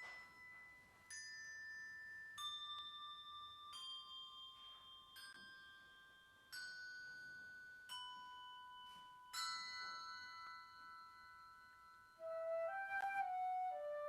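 Instrumental music: slow single notes on bell-like tuned percussion, struck about every second and a half, each left ringing. Near the end a flute enters with a held, wavering melody.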